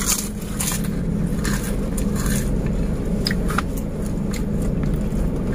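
Steady low hum of a car heard from inside its cabin, with a few brief scrapes and small clicks of someone eating.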